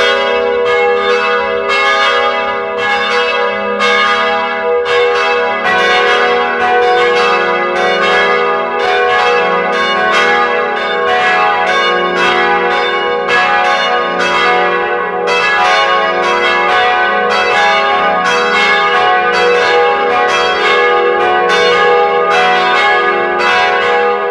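Church bells ringing a continuous peal: bells struck in quick succession, about three strikes a second, each ring carrying over into the next.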